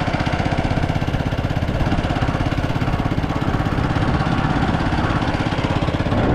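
A vehicle's small engine running steadily on the move, with rapid, even firing pulses under a haze of road and wind noise.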